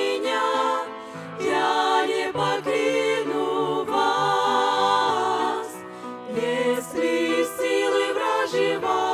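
Women's vocal ensemble singing a Russian-language hymn in harmony over a piano accompaniment, the sung phrases broken by two short pauses, about a second in and about six seconds in.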